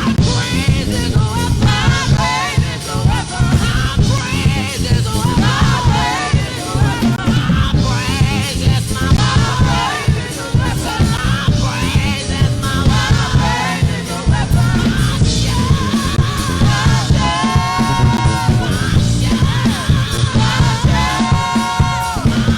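Live worship band music with voices singing over it; long sung notes are held twice in the second half.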